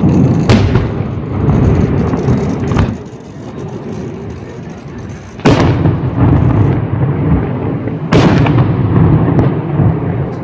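Aerial firework shells bursting: three loud bangs and a weaker one, spread a few seconds apart, each trailing off into a long low rumbling echo.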